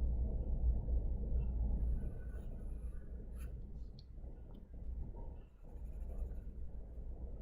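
Sketching strokes scratching on paper, over a low steady hum, with a single sharp click about halfway through.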